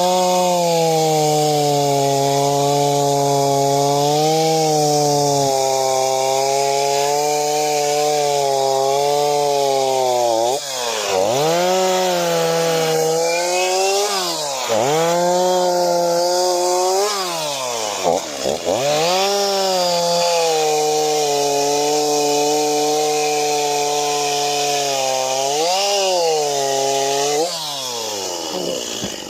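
Two-stroke chainsaw running at high revs, cutting wood. From about a third of the way in, the engine speed dips sharply and climbs back several times. Near the end it falls off to a low idle.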